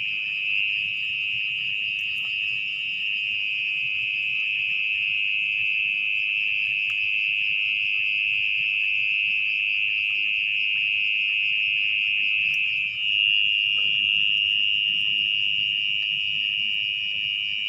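Mole cricket calling from its burrow in the soil: a loud, unbroken, buzzing trill. About 13 s in the trill steps up slightly in pitch and loudness.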